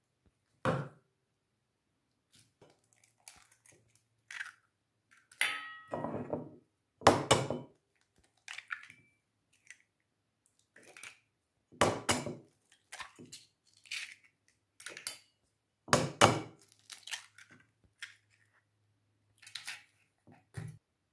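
A knife cut through a bell pepper onto a wooden cutting board near the start. Then three eggs are cracked, one about every five seconds, and opened into a glass bowl, with small clicks and the crinkle of eggshell being handled between the cracks.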